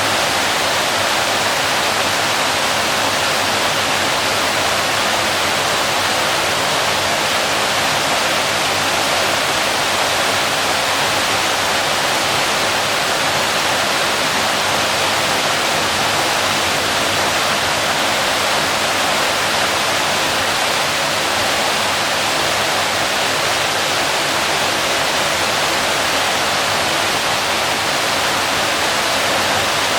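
Waterfall pouring: a loud, steady, unbroken rush of falling water, mostly a bright hiss with little low rumble.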